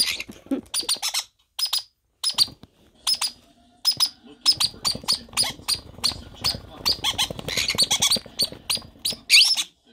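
Green-cheeked conure chicks giving short, high-pitched begging squeaks over and over as the adult feeds them, the calls coming thick and fast in the second half.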